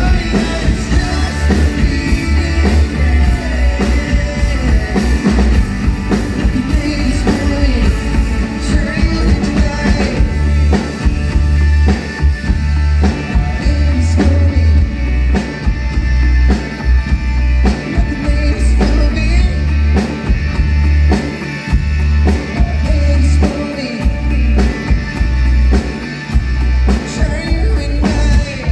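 Live pop-rock band and a male lead singer performing through the PA, with a pounding kick drum and bass line under the vocal and drums.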